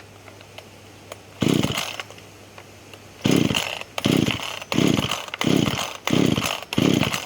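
Small two-stroke chainsaw being pull-started: one pull, a pause, then a quick run of pulls in a steady rhythm, the engine cranking without catching. The repairer suspects it is flooded.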